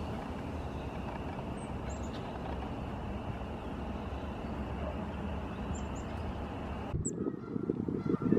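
Steady low outdoor rumble with a few faint, short, high bird chirps. About seven seconds in it changes abruptly to louder low crackling and knocking.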